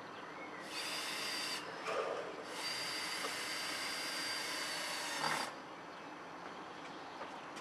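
Cordless power drill/screwdriver running twice with a steady high whine, a short run of about a second and then a longer one of about three seconds, fastening a wood shingle element to the wall; a knock between the runs and another as the second run ends.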